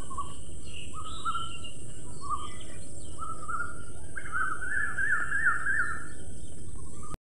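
Songbirds calling outdoors: several short chirping notes over a steady background hiss, then a quicker run of repeated notes about four seconds in that lasts nearly two seconds. The sound cuts off abruptly near the end.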